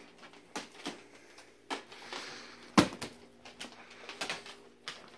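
A string of sharp metallic clicks and knocks from a wire dog crate being handled as a trout is put in, with a brief rustle about two seconds in. The loudest knock comes about three seconds in.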